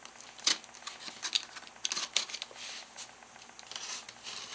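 Hands handling a cardboard shipping box: scattered taps, scrapes and rubs on the cardboard, the sharpest tap about half a second in.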